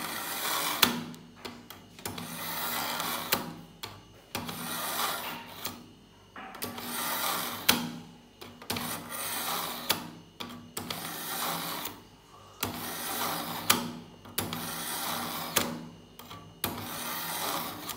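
Steel kitchen knife blade drawn again and again through the slots of a Zircon three-stage pull-through knife sharpener. Each pull is a rasping scrape of about a second, often with a sharp click, and there are about a dozen pulls in a steady rhythm.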